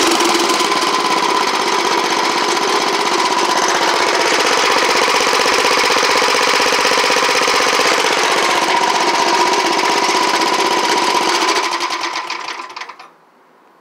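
Wheel Horse garden tractor engine running steadily, then switched off with the key about twelve seconds in and running down to a stop.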